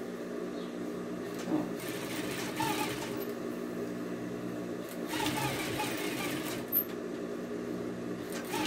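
Sewing machine running steadily, stitching a seam along the edge of a broderie anglaise trim.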